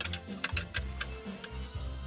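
Background music with a steady low beat and light ticking.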